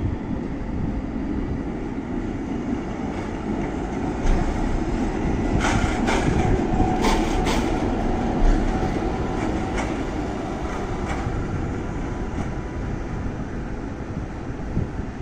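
Articulated electric tram running slowly through a curve in the track, with a steady rumble of its wheels on the rails. About six to seven and a half seconds in, as it passes closest, there is a cluster of sharp clicks and short squeals from the wheels on the curve.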